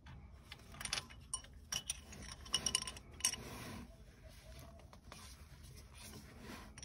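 Scattered light metal clicks and clinks of a wrench and a threaded transmission dipstick being handled, mostly in the first half.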